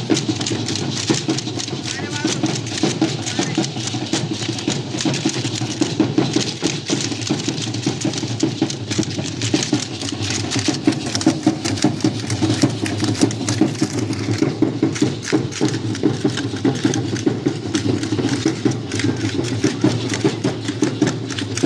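Loud music for a troupe dance, with dense clattering percussion, and voices mixed in throughout.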